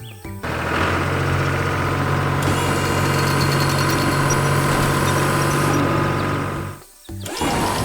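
Heavy-machine engine sound effect for an animated construction vehicle, running steadily, with a high twinkling layer over the middle few seconds; it cuts off sharply near the end.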